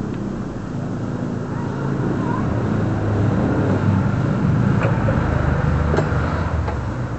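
A motor vehicle's engine running, its hum growing louder through the middle and easing off near the end, with a few light clicks in the second half.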